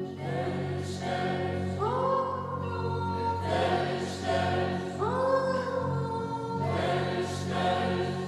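Mixed choir of women and men singing, with several long held notes.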